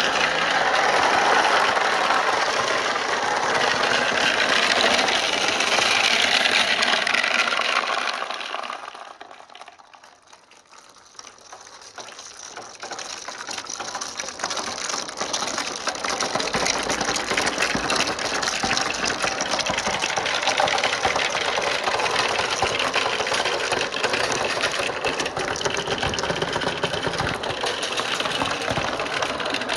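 A large batch of marbles rolling and clattering through PVC pipe and plastic rain-gutter channels, a dense continuous rattle. It dies down for a few seconds about a third of the way in, then builds back up and runs on steadily.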